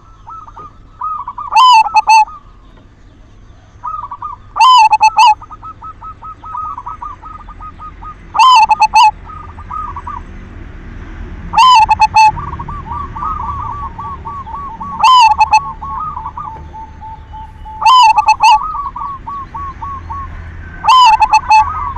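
Zebra dove (perkutut) cooing song: a loud call repeated about every three and a half seconds, with runs of soft, rapid staccato notes between the calls. It is used as a lure call to get other perkutut singing.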